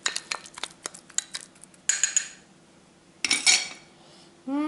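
Metal spoon clinking and scraping against a small glass bowl while stirring a thick spice marinade: a quick run of sharp clinks in the first second and a half, then two short rasping scrapes.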